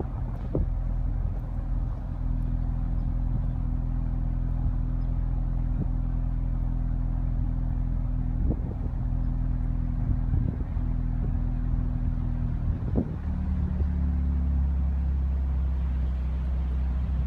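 2015 Ford Mustang's 2.3-litre turbocharged EcoBoost four-cylinder running at a steady speed, heard inside the cabin, with a few light knocks. About thirteen seconds in the note changes and turns deeper and heavier.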